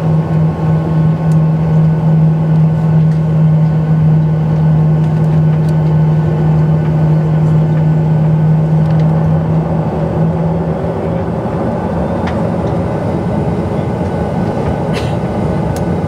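Cabin noise inside a Boeing 737-800 taxiing: the steady rumble of its CFM56 engines and the cabin air, with a strong steady low hum that fades out about eleven seconds in.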